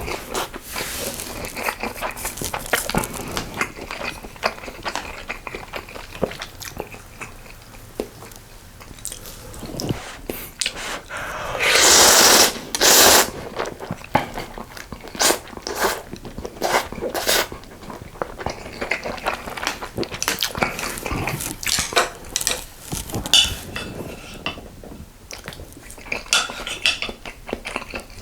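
Eating sounds from a bowl of budae jjigae with ramen noodles: a spoon and chopsticks clicking and clinking against the pot and bowl again and again, with chewing. About twelve seconds in there is a loud noisy burst lasting about a second.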